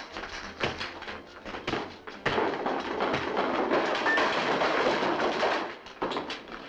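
A violent fistfight in a room: a run of thuds and knocks, then from about two seconds in a loud, continuous crashing and clattering of bodies and furniture for some three and a half seconds, then more knocks.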